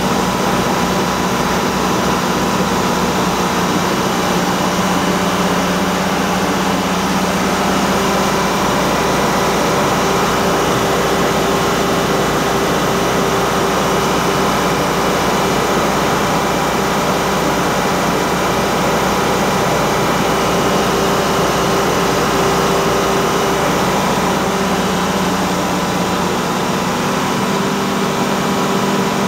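Detroit Diesel engine of a 300 kW diesel generator set running steadily: a loud, even engine drone with a constant hum that stays at one speed.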